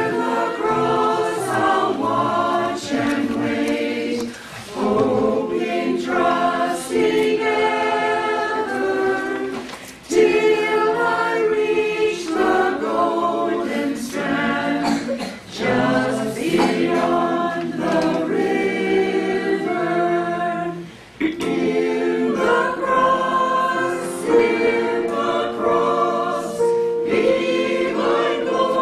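Small mixed choir of men's and women's voices singing a hymn anthem, in long phrases with brief breaks between them.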